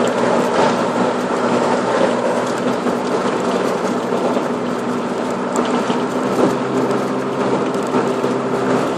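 Car engine running at a steady cruising speed with road noise and a continuous mechanical rattle, heard from inside the cabin.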